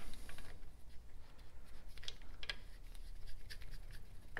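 Faint rustling and a few small clicks as rubber-capped high-tension leads are handled and pushed into the pickups of a Lucas K2F magneto, over a faint steady low hum.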